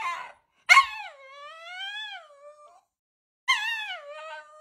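Husky "talking": two drawn-out, howling calls that waver up and down in pitch, each starting loud, the second about three and a half seconds in.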